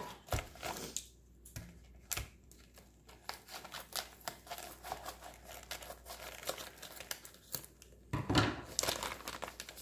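Clear plastic wrapping crinkling and tearing as a bagged pack of yarn skeins is opened by hand. The irregular crackling runs throughout, with a louder burst of rustling about eight seconds in.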